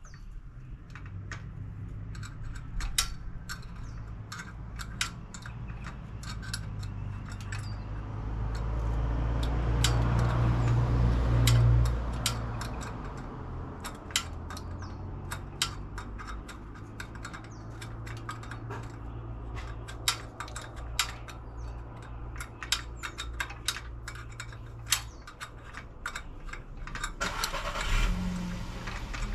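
Irregular metallic clicks and clinks of rigging hardware being handled, over a low rumble that swells about a third of the way in and then fades.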